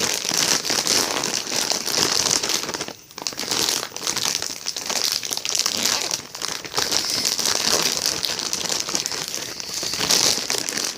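Packaging crinkling and rustling steadily as it is handled and pulled open by hand, with a brief pause about three seconds in.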